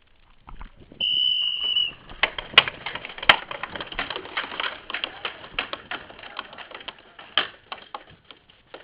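A whistle blows one steady high note for about a second, then paintball markers start firing: a dense run of sharp, irregular pops and paint hits, with two louder shots about half a second apart just after the whistle.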